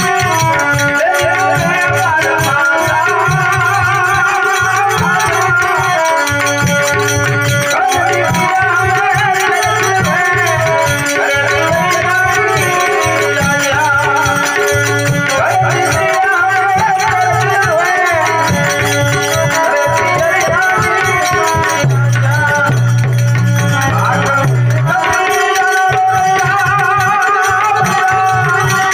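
A man singing a folk song into a microphone, his voice amplified, over held accompaniment notes and a steady rattling percussion beat.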